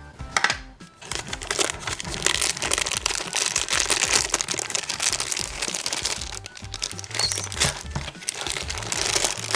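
Plastic packaging crinkling and crackling as a toy gumball machine is handled and opened, over background music.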